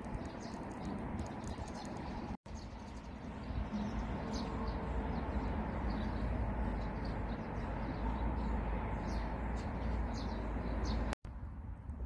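Small birds chirping in short, repeated high calls, with a dove cooing faintly, over a low rumble of wind on the microphone. The sound breaks off for an instant twice.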